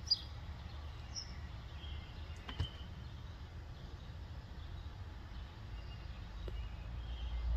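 Outdoor ambience: a steady low rumble with a few faint, scattered high chirps, and a single sharp click about two and a half seconds in.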